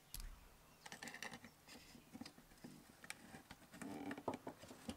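Faint scattered clicks, taps and rubbing as the inverter's front panel is handled and fitted back into its metal case.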